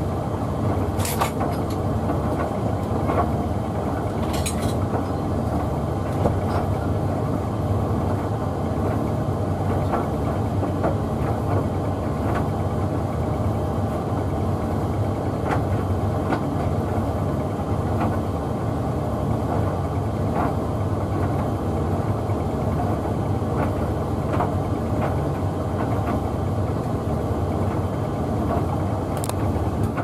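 Hoover Visiontech Infinity VTV581NC tumble dryer running on its Rapid 40 drying programme: a steady hum from the motor and fan as the drum turns with a bathmat tumbling inside. A few light clicks come through, twice near the start and once near the end.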